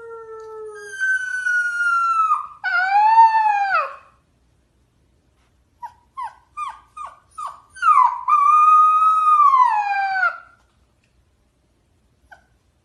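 A dog howling: long drawn-out howls, then a quick run of about six short yips, then a final long howl that falls in pitch as it ends.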